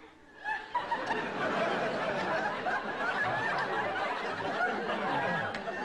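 Studio audience laughing, starting suddenly about half a second in and holding steady.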